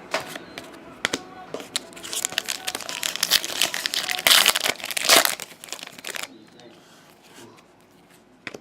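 Foil wrapper of a trading-card pack being torn and crinkled: a busy crinkling crackle for about five seconds that stops abruptly, followed by a few faint handling sounds.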